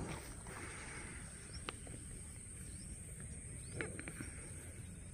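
Faint outdoor background: a low steady rumble with a few short, sharp clicks, the loudest a little under four seconds in.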